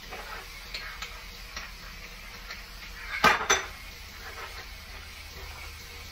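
Metal kitchenware being handled: light clinks, then two loud clanks close together about three seconds in.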